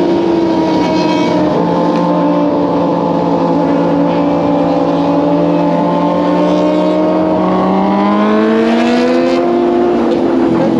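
Kawasaki ZX-25R's 250 cc inline-four engine running at cruising speed. Its pitch sinks slowly as the bike eases off, then rises over a few seconds about two-thirds of the way through as it speeds back up.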